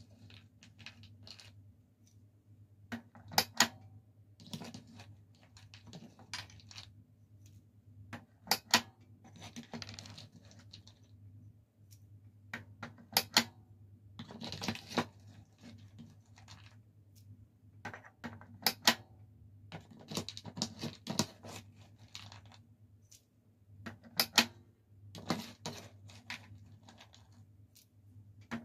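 A metal spoon scooping crunchy corn snacks from a plastic tray: the pieces rattle and crunch as they are stirred and lifted, with sharp clinks, often in quick pairs, as the spoon knocks the tray, every few seconds.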